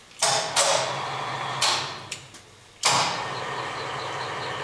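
Carriage of a Promax 26" x 120" engine lathe moved by hand along the bed ways: a metallic sliding rumble in two long pushes, with a short pause between them about two seconds in.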